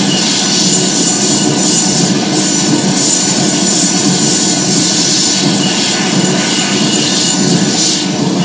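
Loud, dense electronic noise music built from sampled train sounds: a steady rushing wall of train-like noise.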